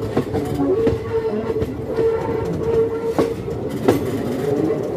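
Passenger train coaches running along the track, heard from the open doorway, with a steady rumble and a few sharp clacks from the wheels over the rail joints. A squealing tone from the wheels comes and goes as the train rounds a curve.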